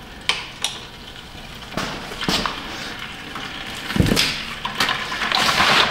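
Hydraulic oil draining from a mini excavator's tank into a plastic 5-gallon bucket, with a few sharp clicks and knocks. A rustle of hands being wiped on a rag grows near the end.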